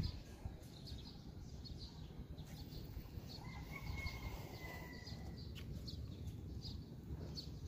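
Small birds chirping again and again, with one longer drawn-out call about halfway through, over a low steady rumble.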